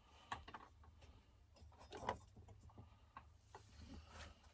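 Near silence: a few faint clicks and light taps, about one every second or so, over a low steady hum.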